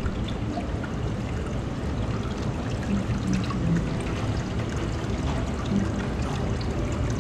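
Water running and splashing steadily in an aquarium touch-pool tank, a continuous pouring trickle.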